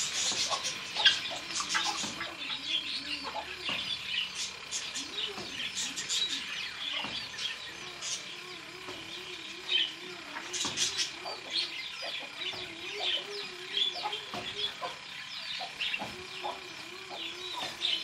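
A mix of aviary birds: many small birds chirping and twittering throughout, over runs of a low call repeated several times a second.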